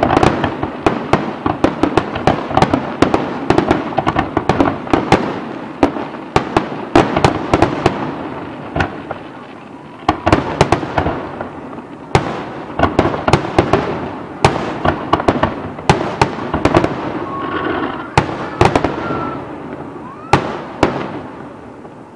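Fireworks display: aerial shells bursting in rapid, overlapping bangs, easing off briefly about ten seconds in and thinning out near the end.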